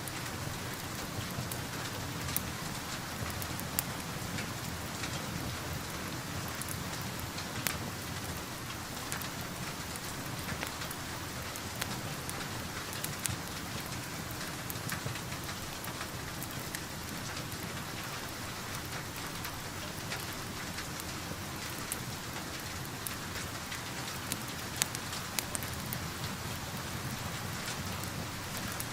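Steady rain falling on a surface, heard from indoors, with scattered sharp crackles and pops from a wood fire. A few louder pops come near the end.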